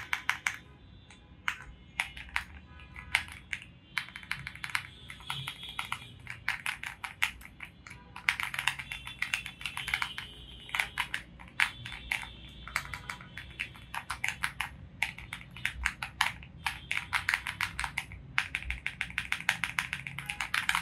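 Xinmeng M75 mechanical keyboard being typed on: rapid runs of clacking keystrokes with brief pauses between the runs.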